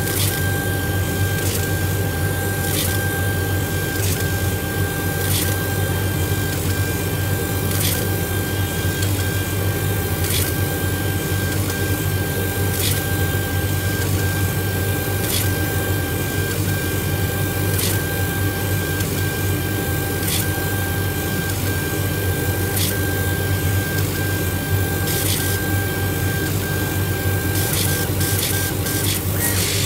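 Laser engraving machine running: a steady motor whine with short regular breaks and a click about every second and a quarter, over a low steady hum. Near the end the clicks come quickly together and the whine stops.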